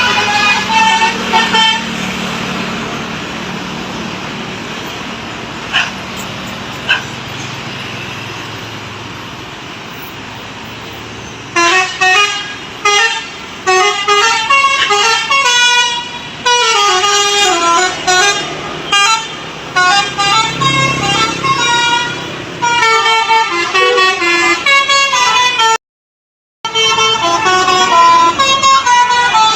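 Telolet horn on an Indonesian tour bus, playing quick melodic tunes of stepping notes. A short tune at the start gives way to engine and road rumble with two brief beeps, then the tunes play almost without pause through the second half, broken once near the end by a gap of under a second.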